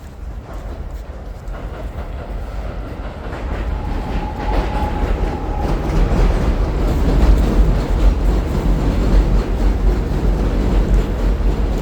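New York City Subway 7 train running on the elevated steel tracks overhead, growing steadily louder as it approaches and staying loud from about six seconds in.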